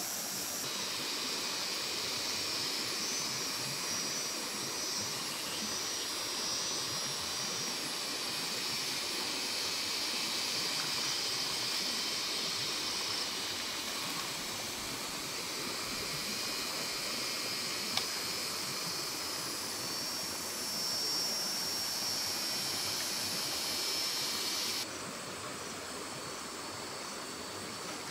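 Steady rushing of a small creek's flowing water, with an even high hum over it that cuts off abruptly near the end. A single short click sounds partway through.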